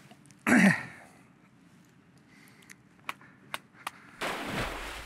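A man's short grunt about half a second in, then a few sharp clicks as a knife works on a plaice lying on concrete, and a rush of noise near the end.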